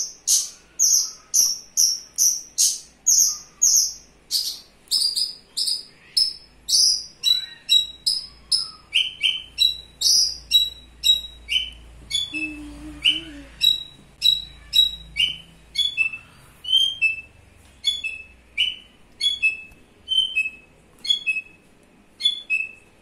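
Javan bush lark (branjangan) singing a long run of sharp, high repeated notes: a fast series of about three or four a second at first, then, from about a quarter of the way in, slower notes of one to two a second, each ending in a short drop in pitch.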